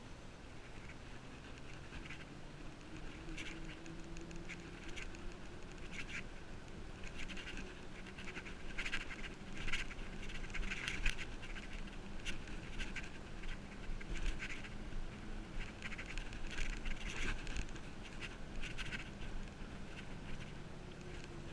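Bicycle rolling along a paved road, heard through a camera mounted on the handlebars: irregular clicks and rattles from the bike and its mount as it goes over the road surface, over a steady low hum. The rattling is busiest through the middle.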